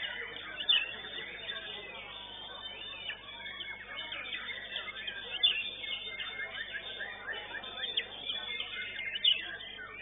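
White-rumped shamas (murai batu) singing, a dense tangle of quick whistled and chirping phrases from several birds overlapping, with a few loud sharp notes standing out.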